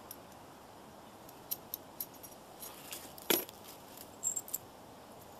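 Small metal hardware clinking and tapping as it is handled at a trailer hitch receiver: scattered light clicks, one louder knock a little past the middle, and a brief metallic jingle soon after.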